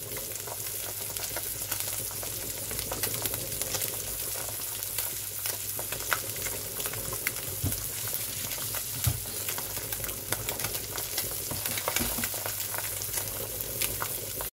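Sea bream fillets frying in butter in a pan: a steady sizzle with frequent small crackles and pops.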